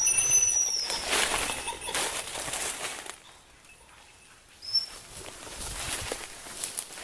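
Footsteps and rustling through woodland undergrowth, loudest over the first few seconds, with a short high whistle near the start and another about five seconds in.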